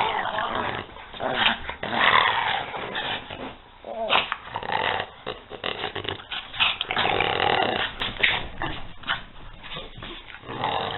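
Two small dogs, a French bulldog and a pug, make play-fight noises in irregular bursts as they wrestle.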